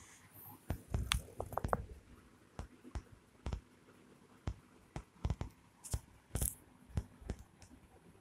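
Irregular soft taps, clicks and rustles of handling close to the microphone as a hand plays with a cat's paw and face, busiest about a second in.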